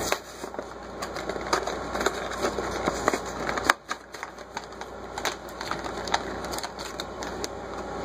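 Plastic blister packaging and card backing of a die-cast toy car two-pack being pulled and torn open: a run of irregular crackles and clicks, with one sharp snap a little under four seconds in.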